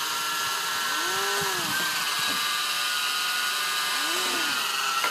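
Air Hogs Gryphon toy RC helicopter's small electric motors and rotors running with a steady high whine. A lower whir swells up and falls back twice.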